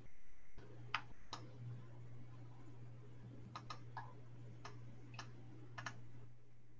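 Faint, irregular clicking at a computer, about eight sharp clicks with a couple in quick pairs, over a steady low electrical hum.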